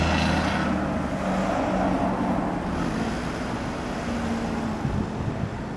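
A vehicle passing close by and moving away: a steady running rumble with a brief higher whine at the start, slowly fading.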